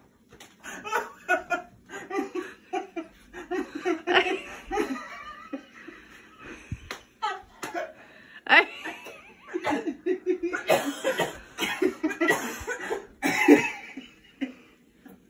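People laughing hard and coughing in repeated fits, the coughing brought on by smoke from food burnt onto the stovetop filling the room.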